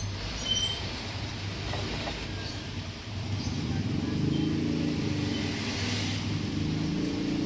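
A motor vehicle's engine running, getting louder about halfway through over a low rumble.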